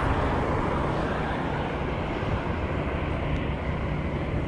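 Wind rushing and buffeting over the microphone of a bicycle riding along a road, with a passing vehicle's road noise fading away in the first second.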